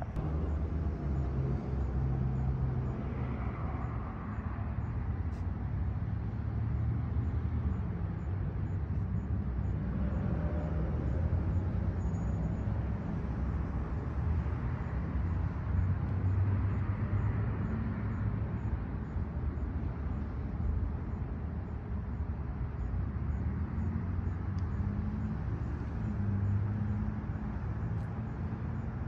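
2011 Infiniti M37x's 3.7-litre V6 idling steadily through a straight-piped exhaust: catless downpipes with the muffler and resonator deleted.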